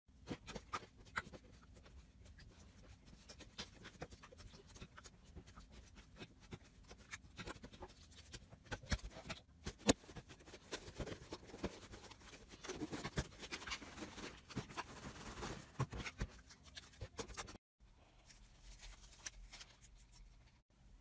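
Hands pressing and poking slime, making many small crackling clicks and pops, thickest in the middle stretch, with a brief break near the end.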